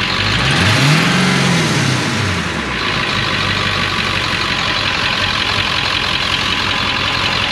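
Ford 7.3 Powerstroke turbo-diesel V8 revved once from idle, rising to a peak about a second in and falling back to idle within about three seconds, then idling. This truck builds only two or three PSI of boost, and the owner places the problem at the top of the left-side up pipes.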